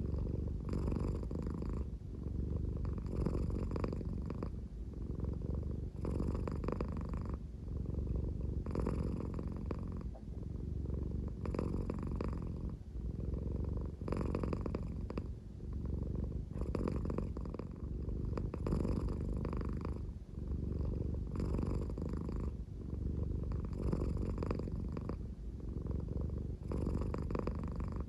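American Shorthair cat purring at a slow pace, a deep, snore-like rumble that swells about every two and a half to three seconds with each breath.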